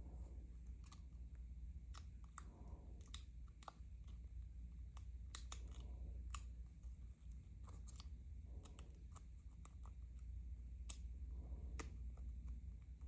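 Faint, irregular small metallic clicks and scrapes of hand tools and pin parts as a DOM ix dimple lock is shimmed open and taken apart, over a low steady hum.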